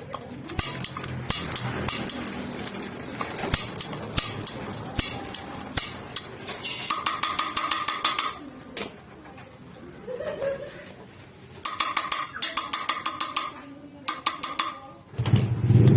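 Irregular metallic clicks, taps and clinks of a Rinnai gas stove's rust-seized valve assembly being handled and worked with tools. A loud low rumble starts near the end.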